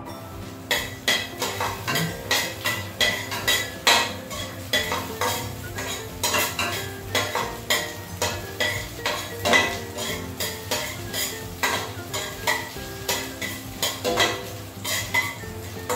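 Garlic frying in hot oil in a stainless steel pot, sizzling, while a metal spoon stirs it with repeated clinks and scrapes against the pot.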